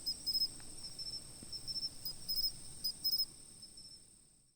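Crickets chirping: a steady high trill with quicker pulsed chirps over it, fading out about four seconds in.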